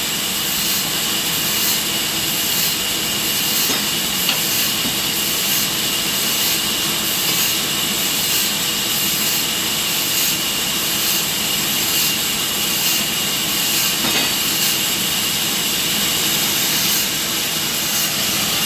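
Sawmill machinery running steadily: a loud, even hiss with a constant high whine and a faint regular beat about twice a second.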